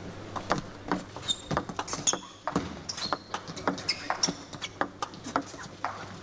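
Table tennis rally: the celluloid-type ball clicks sharply and unevenly, many times, off the paddles and the table. Short high squeaks come through between the hits, from the players' shoes on the court floor.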